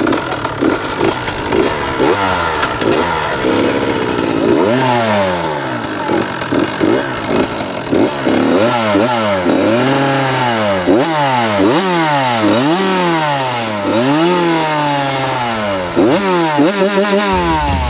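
Dirt bike engine being ridden, its revs climbing and dropping sharply over and over as the throttle is opened and rolled off.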